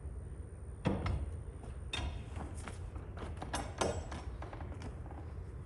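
A few sharp knocks and clunks over a steady low rumble, the loudest about a second in and two close together just before four seconds.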